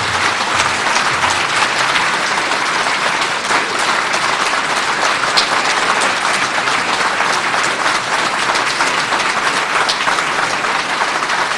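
Audience applauding: steady, dense clapping with no letup.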